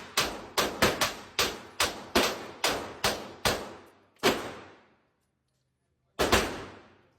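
A rapid string of gunshots, about eleven at two to three a second, each with a long echo dying away. After a pause of nearly two seconds comes one more shot.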